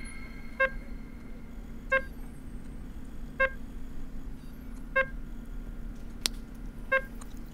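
Handheld barcode scanner beeping five times, a short electronic beep about every one and a half seconds, each the confirmation of a successful scan. A single sharp click comes near the end.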